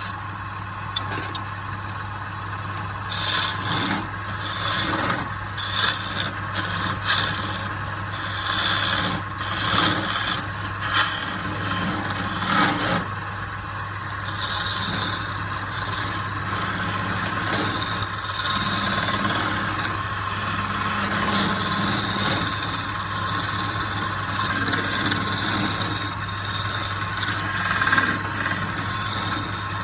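A tool scraping and rasping against wood in irregular strokes, with short louder scrapes, over a steady motor hum.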